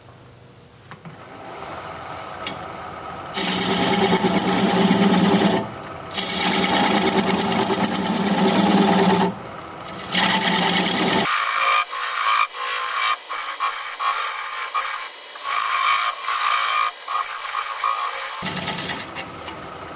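Wood lathe running while a turning tool cuts into the bottom of a spinning hard cherry plum bowl blank to form the tenon. The tool scrapes and cuts in several long passes with short pauses between them.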